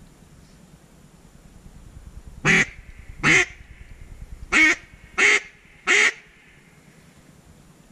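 Duck call blown by a hunter: five loud, separate quacks spaced under a second apart, with a longer pause between the second and third.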